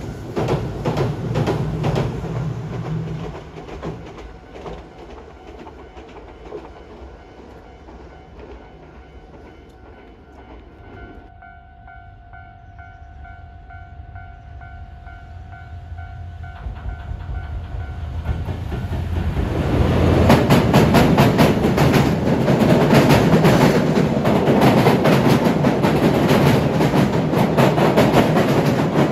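A Hiroden tram runs past and fades away at the start. Later a level-crossing warning sounds with steady electronic tones. From about 19 seconds on, a container freight train hauled by a JR Freight EF210 electric locomotive crosses a steel bridge. Its wheels clatter loudly and steadily over the rail joints.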